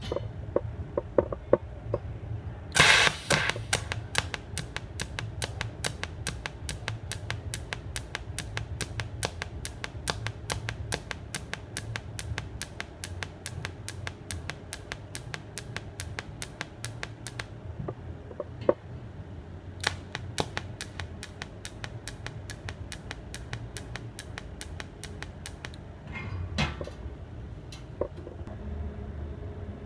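TIG welding arc pulsing from a pulse generator box: a loud arc start about three seconds in, then even clicks about three a second until near 17 seconds. A second run starts around 20 seconds and stops about 26 seconds in, over a steady low hum.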